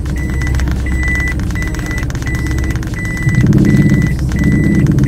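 A car's reverse-gear warning beeper, one steady high tone repeating about one and a half times a second, over the engine running. The engine sound grows louder about three seconds in.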